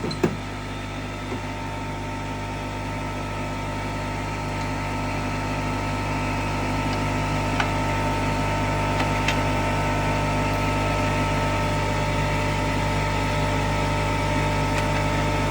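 Small portable air compressor running with a steady electric-motor hum that slowly gets a little louder. A couple of faint ticks come through around the middle.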